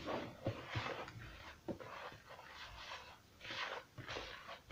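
Hands stirring and rubbing dry flour in a plastic mixing bowl: soft repeated swishes of the flour, about one a second, with a few light knocks of the bowl.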